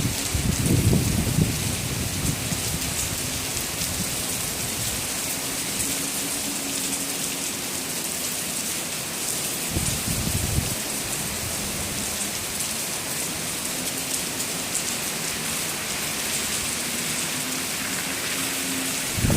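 Heavy rain falling steadily on surfaces, a dense even hiss, with brief low rumbles in the first second or so and again about ten seconds in.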